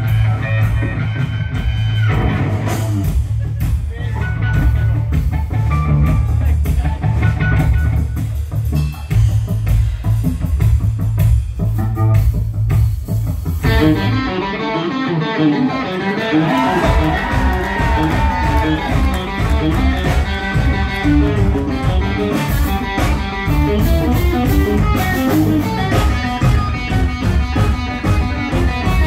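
A live rock band plays through a club PA: electric guitar over bass and a drum kit. About halfway through, the heavy bottom end drops out for a couple of seconds, then the band carries on in a busier guitar passage.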